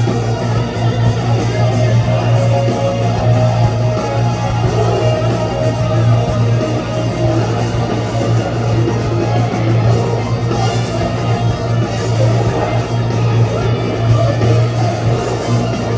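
Live rock band playing an instrumental passage led by electric guitar, over a steady, heavy bass.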